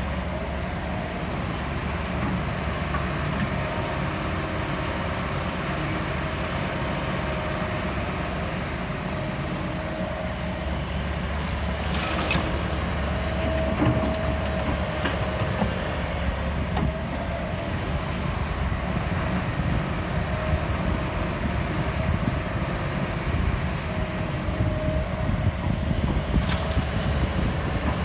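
Kobelco SK200-10 hydraulic excavator working, its diesel engine running steadily under load with a steady whine over it as it digs and swings loads of laterite. A few sharp knocks come from the work, the clearest about twelve seconds in, and it gets slightly louder and more uneven in the second half.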